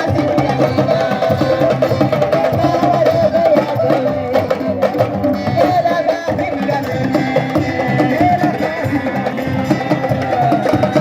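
Music with a busy hand-drum rhythm under a wavering melodic line.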